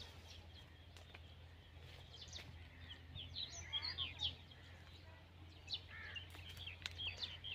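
Small birds chirping faintly in short calls, in a burst of several calls from about two seconds in and more near the end, over a steady low hum.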